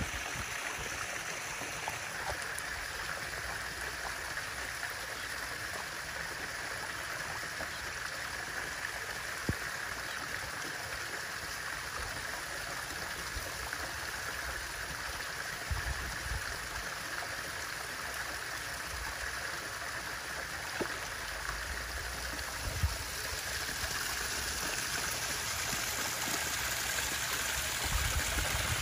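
Water running steadily into a garden koi pond: a continuous trickle and splash, with a few soft low bumps.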